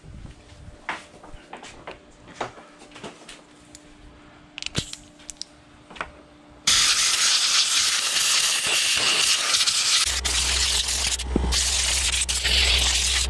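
Compressed air blasting from an air-gun nozzle onto a Stihl 031AV chainsaw power head: a loud, steady hiss that starts suddenly about halfway through, after a few quiet clicks and knocks of handling. A low steady rumble joins about three seconds after the hiss begins.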